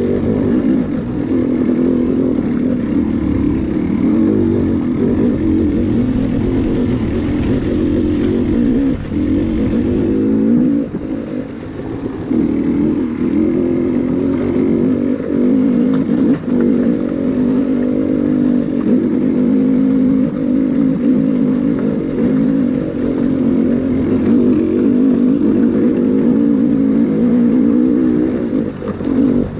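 Enduro dirt bike engine running under load on a trail ride, its revs rising and falling with the throttle. It is briefly quieter about ten seconds in.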